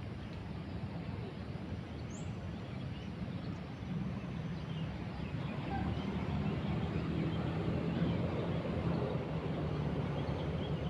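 A motor engine's steady low hum, growing louder about four seconds in and again a couple of seconds later, with faint bird chirps over it.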